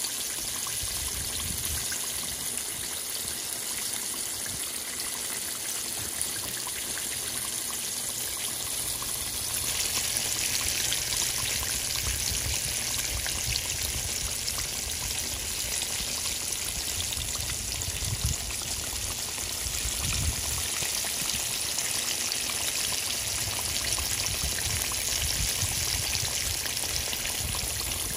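Breaded catfish fillets deep-frying in hot oil: a steady sizzle with fine crackling that grows louder about ten seconds in.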